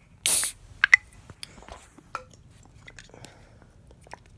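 An aluminium Baja Blast soda can handled close to the microphone: a short hiss-like rustle just after the start, then two sharp clicks a little under a second in, followed by scattered light taps.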